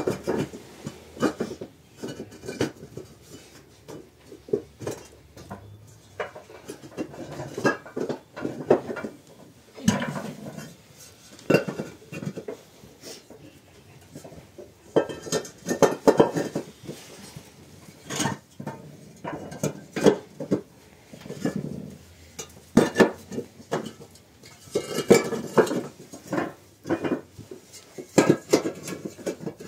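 Hollow fired-clay bricks clinking and knocking against each other as they are picked from a stack and set down edge to edge into a floor, in irregular clusters of sharp knocks.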